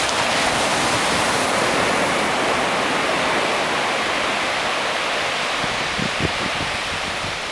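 Surf breaking and washing up on a sandy beach, a steady rush of noise, with wind buffeting the microphone in low gusts during the second half.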